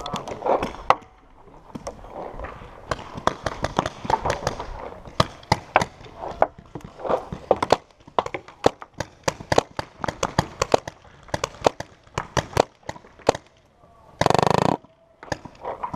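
Paintball markers firing in scattered, irregular pops across the field, with a loud, fast burst of shots close by near the end.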